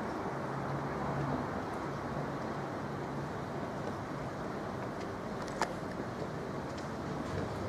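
Steady low rumble of road traffic, with a faint engine hum for the first few seconds and a single sharp click a little past halfway.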